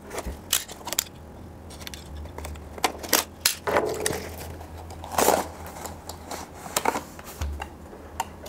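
Cardboard packaging being handled and opened: an irregular string of sharp clicks, taps and scrapes as the box is slid open and the inner tray's flaps are lifted, with louder rustles about four and five seconds in, over a low steady hum.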